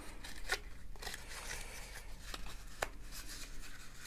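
Stiff black cardboard insert from a mouse box being handled and flexed open, rustling, with a few sharp clicks and snaps of the card.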